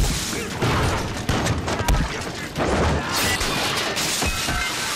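Gunfight sound effects from a war film: repeated, irregular gunshots and crashing impacts over a background music score.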